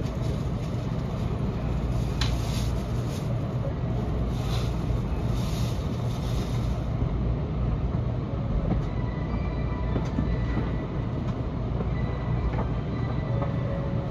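Steady low hum of a stationary N700S shinkansen heard from inside the passenger car, its onboard equipment and air conditioning running while it stands at a station. A higher hiss fades out about halfway through.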